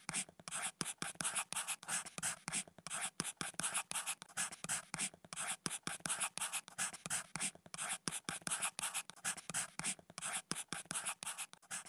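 Pen nib scratching on paper in a steady run of short, quick strokes, about four a second: a handwriting sound effect.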